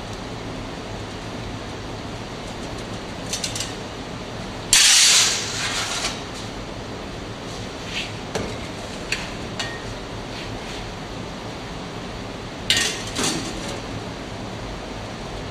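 Damp foundry molding sand being tipped into a casting flask and worked by hand: a sharp rush of sand about five seconds in that fades over a second, another near thirteen seconds, and scattered scrapes and taps between, over a steady hiss.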